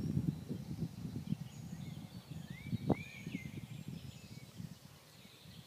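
Birds chirping and singing in the trees over a low, crackly rumble on the microphone. About three seconds in, a louder whistle sweeps sharply up and holds briefly.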